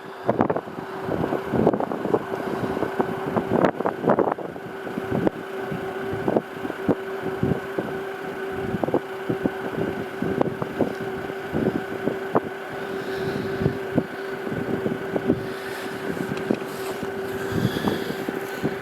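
Moderate wind buffeting the microphone in gusts, with many irregular knocks, over a steady mechanical hum.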